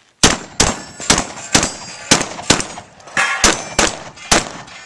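A rapid string of shotgun shots, about nine in four seconds, each followed by a brief metallic ringing.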